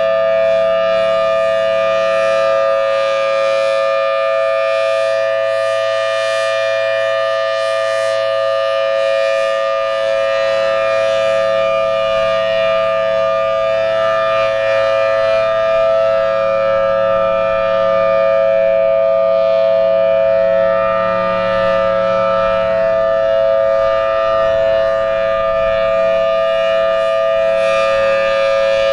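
Federal Signal Thunderbolt 1000T warning siren sounding its steady alert: a loud, held two-note chord with slight slow swells in loudness. The siren is running healthy.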